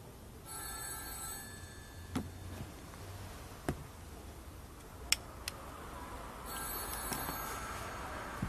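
A telephone ringing twice, each ring about a second long and about six seconds apart, with a few sharp clicks between the rings.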